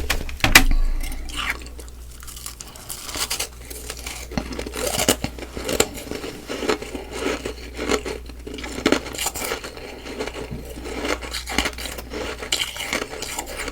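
Close-miked chewing of soft, powdery humidifier-frost ice: a louder bite about half a second in, then quieter, irregular crunching and crackling.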